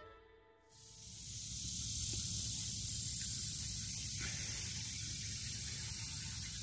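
Steady high-pitched chorus of insects, fading in over the first second or two and holding level.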